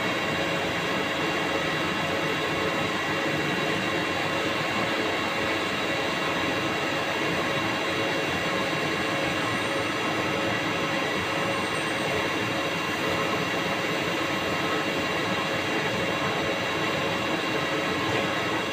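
CNC lathe turning a part: a steady machining noise with several constant tones that holds unchanged throughout.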